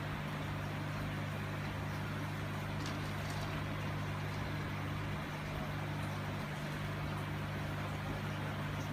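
Aquarium pump and filter running: a steady low hum over a soft hiss.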